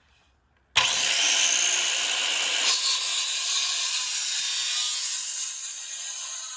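Circular saw cutting through a 4x4 wooden post: a loud, steady whine of the blade in the wood that starts suddenly under a second in and keeps on without pause.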